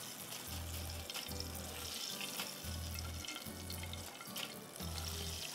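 Quiet background music with low bass notes pulsing in pairs, over a faint steady hiss.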